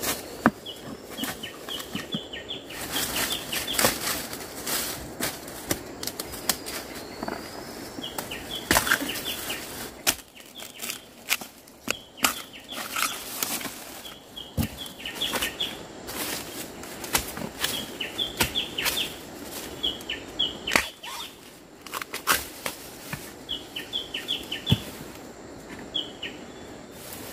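Dry fallen bamboo leaves crunching and rustling underfoot and under the hands as the shoots are dug and cut, with a few sharp knocks. A bird calls again and again in short quick series of high notes.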